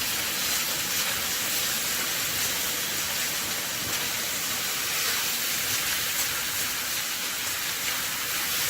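Chicken pieces frying in hot oil with ginger and garlic: a steady sizzling hiss with faint crackles.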